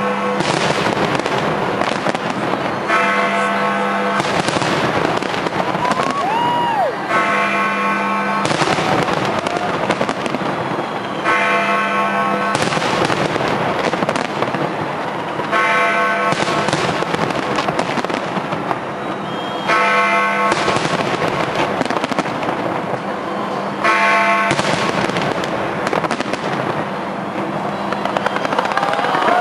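Big fireworks display: a dense run of bangs and crackling bursts, with a short whistling firework about six seconds in.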